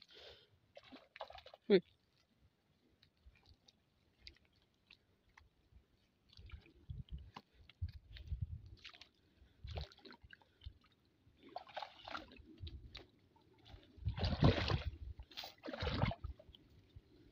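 Water splashing and sloshing, with wet mud squelching, as a cast net is hauled out of shallow muddy water and dropped onto the mud bank; the sounds come in irregular bursts, busiest in the second half. Near the start there is one short falling squeak.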